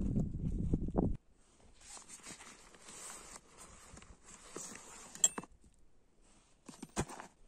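Rustling of a nylon backpack and a folded plastic ground mat as they are handled, with a sharp click about two-thirds of the way through and a few sharp handling knocks near the end. A louder, low sound in the first second cuts off abruptly.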